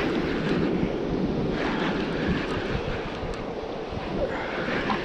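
Wind buffeting the microphone over surf washing on the rocks, with a spinning reel being cranked as a hooked fish is wound in.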